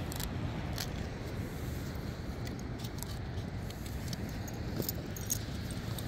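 Light, scattered metallic jingling of a dog's collar and leash hardware over a steady low background rumble.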